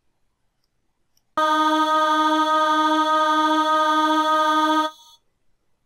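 Looped choir vowel sample ('Vox D#3' of an Octave Choir SoundFont) playing back: one steady sung note that starts about a second and a half in, holds for about three and a half seconds and then stops, its loop sounding okay.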